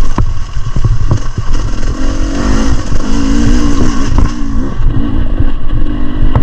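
Beta 300 RR two-stroke enduro bike engine running on the trail, its revs rising and falling as the throttle is worked, with scattered short knocks.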